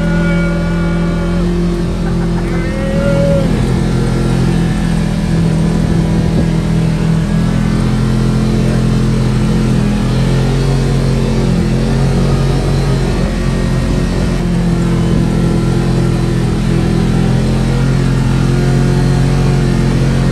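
Engine of a Kawasaki side-by-side UTV running steadily under way on a dirt track, its pitch shifting a little as the throttle changes, heard from inside the open cab.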